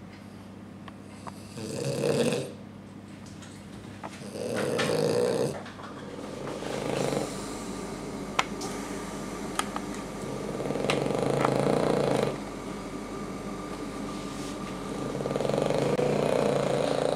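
French bulldog snoring in about five long, noisy breaths a few seconds apart: the stertor of a brachycephalic airway narrowed by an elongated soft palate and stenotic nostrils. A few faint clicks fall between the breaths.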